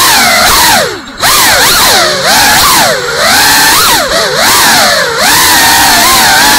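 GEPRC Cinelog 35 ducted 3.5-inch FPV cinewhoop's motors and propellers whining loudly, the pitch swinging up and down quickly as the throttle is worked, with a short drop about a second in.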